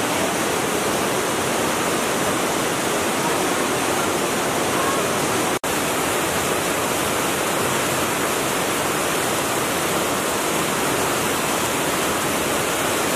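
Steady rush of a cave stream pouring and foaming over travertine rocks. It cuts out for an instant about five and a half seconds in.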